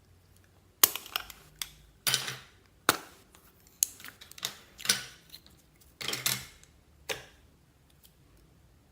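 Slime being handled by hand, giving a run of sharp pops and crackles, about a dozen in six seconds, that stop a little before the end.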